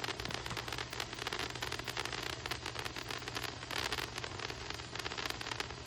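Fireworks crackling continuously: a dense run of many small pops every second, with no single big bang standing out.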